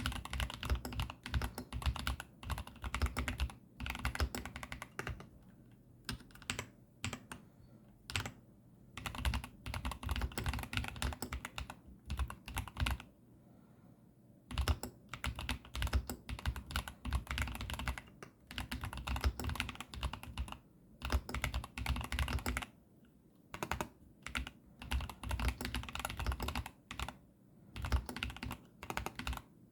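Typing on a Keychron V10 Pro Max mechanical keyboard with Gateron Banana switches: fast runs of key clacks in bursts, broken by brief pauses.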